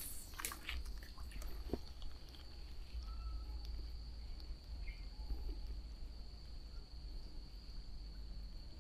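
Steady, high-pitched insect drone over a low rumble of wind or handling noise, with a few light clicks in the first two seconds.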